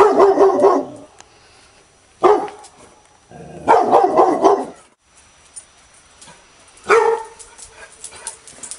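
A dog barking angrily in four bouts: a rapid run of barks, a single bark, a second rapid run, then one more bark near the end.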